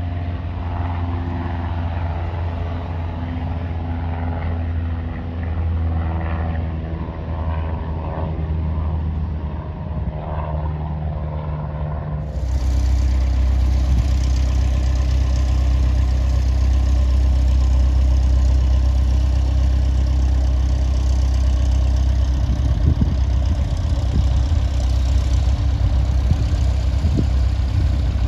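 Aircraft engine noise on an airport ramp. About twelve seconds in it changes abruptly to a louder, deeper steady hum with occasional clicks: the piston engine of a single-engine Cessna 172 idling as it taxis close by.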